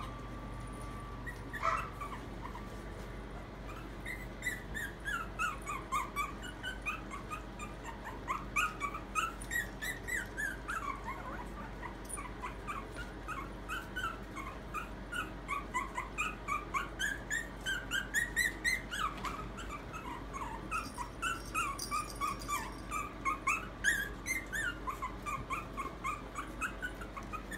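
Maltese puppy whimpering and yipping in long strings of short, high-pitched cries, several a second, starting about four seconds in. It is typical of a puppy crying to be picked up.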